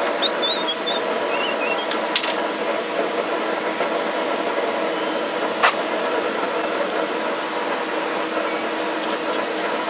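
A steady machine hum runs throughout. About halfway through there is one sharp metallic clink of steel pliers being set down on an anvil, and light ticks follow near the end.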